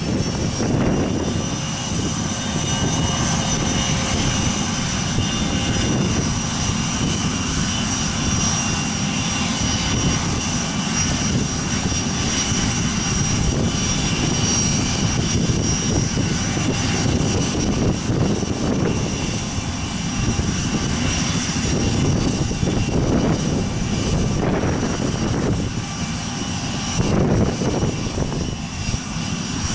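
Business jet standing with its turbine running, a steady high-pitched whine over a low rumble, with wind buffeting the microphone.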